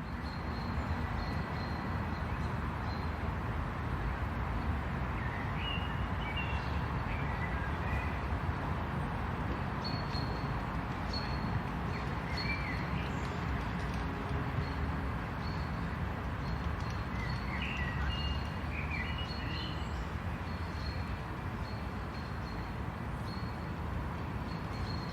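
Suburban ambience: a steady low background rumble with small birds chirping over it. Bursts of chirps come about a third of the way in, near the middle and again about three quarters of the way through. In the second half a single short high note repeats steadily, a little faster than once a second.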